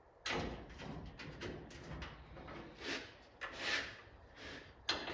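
Hood latch bar being worked down behind a car's grill assembly: metal parts scraping and clunking in irregular bursts, with a sharp click near the end.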